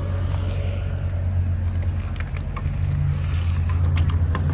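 A vehicle engine running steadily with a low hum, with a few short sharp clicks or knocks in the second half.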